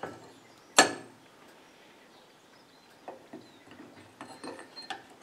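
Flat steel plates of a homemade rotary disc valve being laid onto the stack: one sharp metallic clink about a second in, then a few lighter knocks and scrapes of metal on metal near the end.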